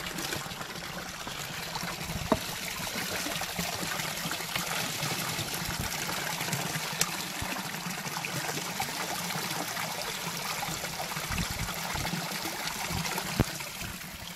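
Spring water running out of a rock face and splashing, a steady trickle, with three sharp knocks spread through it.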